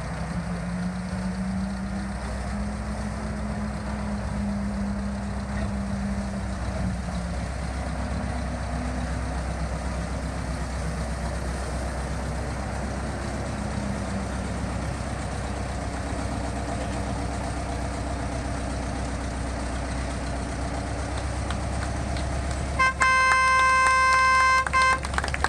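Ruston diesel shunting locomotive's engine running steadily as the locomotive moves slowly forward, then its horn sounds one steady blast of about two seconds near the end.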